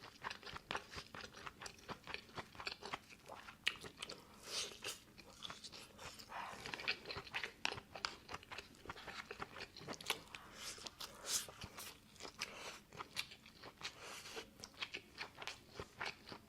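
A person chewing and biting food close to the microphone: many small, crisp crunches and mouth sounds in an uneven run.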